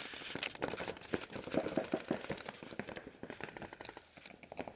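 Paintball markers firing: a scatter of sharp pops, with a quick string of about six shots near the middle.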